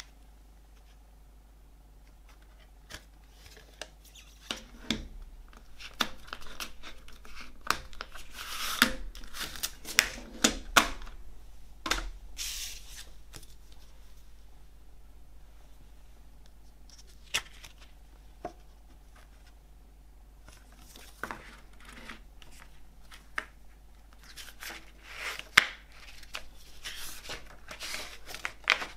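A plastic CD jewel case handled and opened, with sharp clicks, then its paper booklet slid out and a fold-out insert unfolded, rustling and crinkling. The handling comes in two busy spells, one in the first half and one near the end, with a calmer stretch between.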